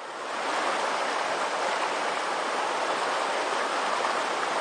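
Whitewater rapids of a narrow, rocky river rushing steadily, fading in over the first half second.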